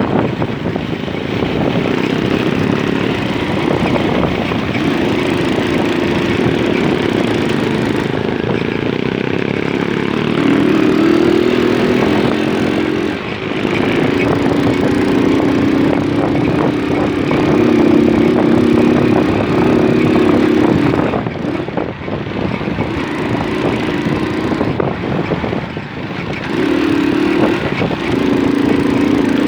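Small moped engine running under way. Its note steps up and down as the throttle changes and drops briefly a few times when the throttle is let off, over a steady rush of wind and road noise.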